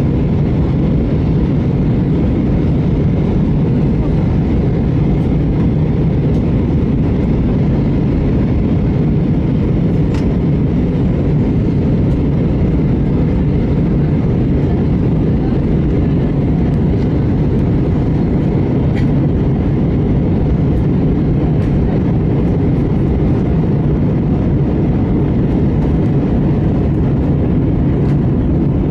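Steady low rumble of an Airbus A320 passenger cabin in flight, engine and airflow noise heard at a window seat over the wing while the airliner descends toward landing.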